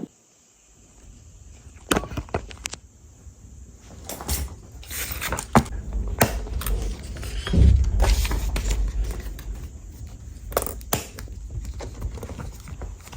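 Journaling materials handled on a desk: scattered taps and clicks with paper rustling and a few low knocks against the desk surface, the loudest knock about eight seconds in.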